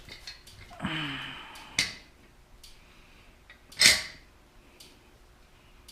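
Metal rear paddock stand being fitted up against a motorcycle's swingarm spool sliders. There is a brief rasping sound about a second in, a click, and then a sharp metallic clank near four seconds in, the loudest sound.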